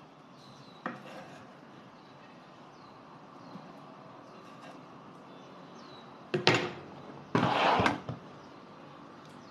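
A serrated knife scraping across a wooden chopping board: a light tap about a second in, then a short scrape and, about a second later, a longer one.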